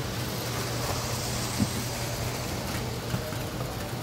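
Steady hum and hiss of model trains running on a large layout, with one sharp knock about a second and a half in and a smaller one near the end.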